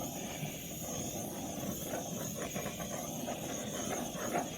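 Handheld butane torch hissing steadily as it is passed over wet acrylic pour paint to pop up cells.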